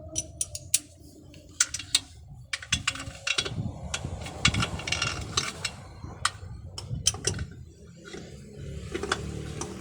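Metal hand tools clinking and clicking against metal in irregular sharp knocks, as bolts are worked loose on a truck's diesel injection pump, over a steady low hum.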